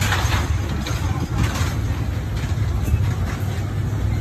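Steady low engine-like rumble of street background noise, with a few brief faint sounds over it.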